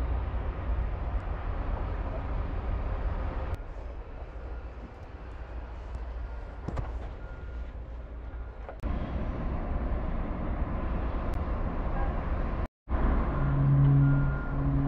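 Wind rumbling on the microphone over distant traffic and port noise, with faint repeated short beeps. A steady low hum comes in near the end.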